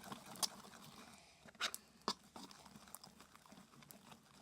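Slime being pressed and worked by hand, giving a few sharp, sticky clicks and pops, the loudest around the middle.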